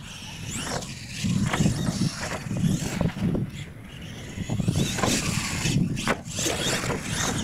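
R/C monster truck driving on a dirt track, its motor whining up and down as the throttle changes, with a few sharp knocks from the truck bouncing on the dirt.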